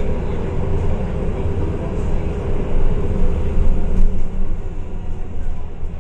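MAN A22 city bus running on the road: a steady low engine and drivetrain rumble that grows louder about halfway through, then eases.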